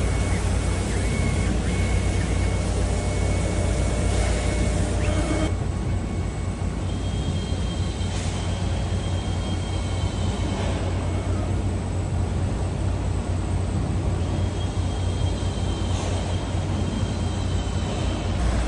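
Automatic CNC fabric cutting machine running: a steady low hum, with a thin high whine from its moving head's motors that comes on and drops out several times.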